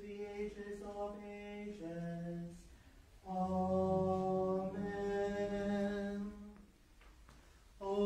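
Liturgical chant sung on long held notes, mostly on one reciting pitch: a phrase that steps down near its end, a short pause, then a longer phrase with a lower voice joining at its start, and the chant taking up again near the end after a second pause.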